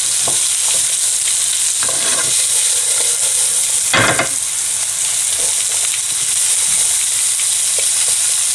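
Vegetable strips sizzling in hot oil in a non-stick frying pan, with a spatula scraping and turning them every second or two and one louder knock about four seconds in.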